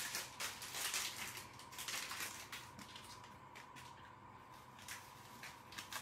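Faint rustling of a plastic bag and handling of a fine-mesh metal sieve while powdered sugar is tipped into it for dusting. The rustling is densest in the first couple of seconds, then comes in scattered short rustles and small ticks.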